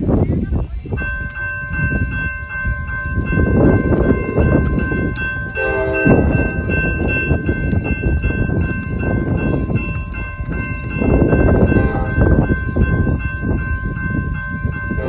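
Railroad crossing warning bell starts ringing about a second in as the signals activate, and keeps ringing steadily. Under it runs a loud low rumble that rises and falls, and a brief pitched blast sounds around the middle.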